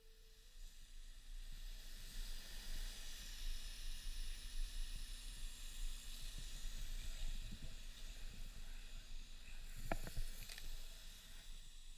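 Steady hissing background noise with a low hum underneath, fading in over the first second or two, and a short knock about ten seconds in.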